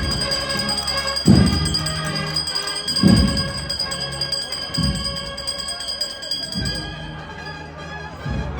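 Processional band music playing a slow march, with a deep bass drum stroke about every second and a half to two seconds under long held notes.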